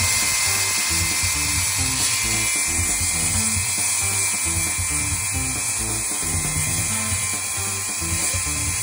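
Battery-powered Milwaukee power tool's electric motor running at a steady high whine, under background music.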